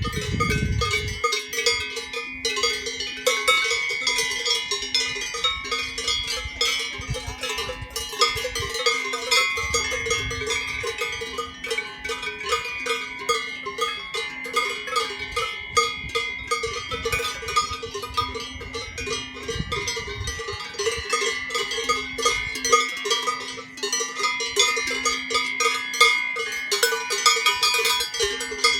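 Swiss cowbells on grazing cattle clanging together in a continuous, irregular jangle, several bells of different pitch ringing at once.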